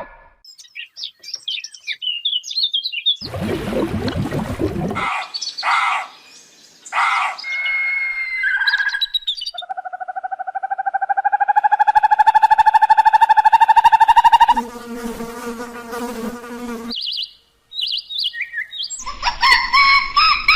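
A string of different animal calls one after another: bird chirping first, then a noisy burst and short calls, a long pulsing buzz in the middle, and dense honking-like calls near the end.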